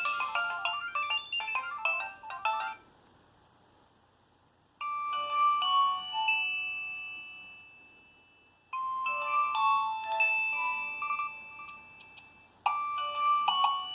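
Nokia 6225 mobile phone playing its preloaded polyphonic ringtones through its small speaker. A busy run of quick notes stops about three seconds in. After a pause of about two seconds another ringtone begins with long held chords, then goes on into faster melodic phrases.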